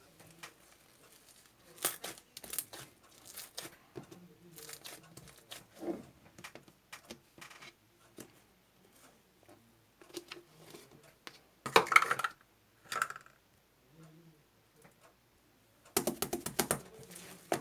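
A run of light clicks, taps and crinkles from small objects being handled, in louder clusters about two, twelve and sixteen seconds in.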